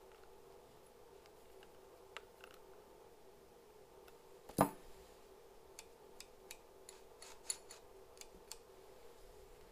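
Small metal clicks and ticks from tensioning the chain on an Echo CS-590 chainsaw: a combination tool turns the adjuster, and the bar and chain are handled. One sharper click comes about halfway, followed by a run of light ticks.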